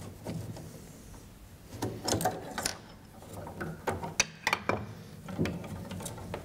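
Small wooden clicks and knocks from a screwdriver and fingers working in an upright piano's hammer action, coming irregularly in a few clusters.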